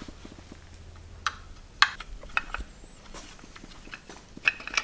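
Scattered sharp clicks and light taps of hand tools and loose parts on the electric scooter, about half a dozen irregular strikes, as screws are taken out of a cover.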